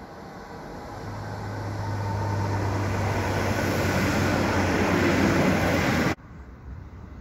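Modern multiple-unit passenger train approaching and passing close below, growing steadily louder with a steady low hum under the rush of wheels on rail. It cuts off abruptly about six seconds in.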